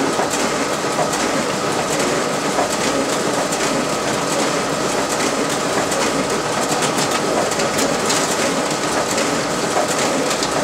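RISO 9050 production printer running a duplex job: a steady mechanical whir with a fast, continuous rattle and ticking as sheets are fed and passed through the machine.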